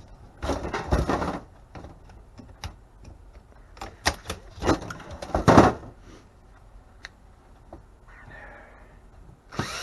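Metal and plastic parts of a microwave being handled and pried apart, clicking and clattering, with two louder stretches of rattling about half a second in and again about four and a half seconds in.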